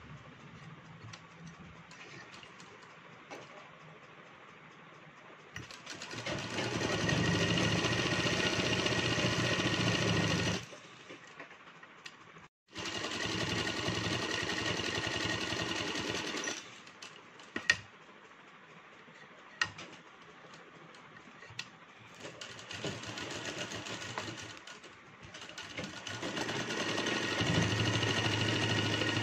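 Domestic sewing machine stitching a seam in folded fabric. It runs in spells of a few seconds, stopping and starting several times, with a few light clicks during the pauses.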